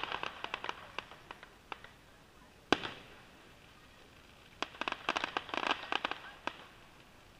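Aerial fireworks heard from a distance: dense runs of crackling pops, thinning out over the first second, a single sharp bang just under three seconds in, then another run of crackling pops about halfway through that lasts about two seconds.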